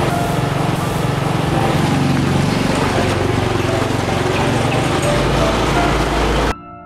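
Motor scooter engine running steadily at idle. It cuts off abruptly near the end, replaced by soft piano music.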